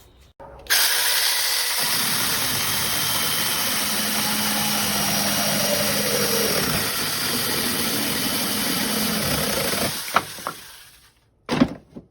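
SINPY 6-inch battery mini chainsaw running steadily for about nine seconds, then winding down, followed by a short knock.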